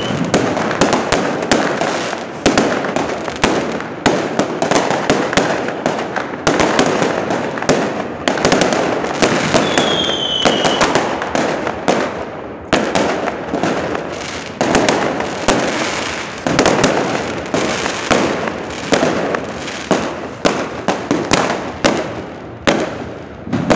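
Many fireworks and firecrackers going off in a continuous barrage of sharp bangs and crackling. A firework's whistle falls in pitch about ten seconds in.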